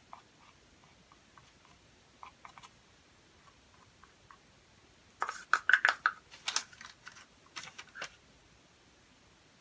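Light clicks and clatter of painting supplies, plastic paint cups among them, being handled and set down on the work surface. There are a few faint ticks at first, a dense run of clicks about five to six seconds in, and a few more near eight seconds.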